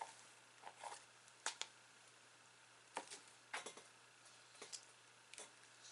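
Faint, scattered clicks and small crackles, about eight in all, as a new slime and its container are handled.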